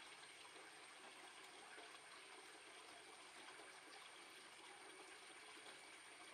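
Near silence: a faint steady hiss with a thin high-pitched tone.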